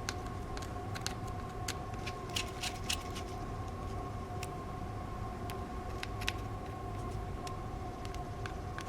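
Scattered light clicks and ticks of a small precision screwdriver and metal parts on a smartphone's internal frame as tiny Torx screws are driven in, over a steady electrical hum with a faint whine.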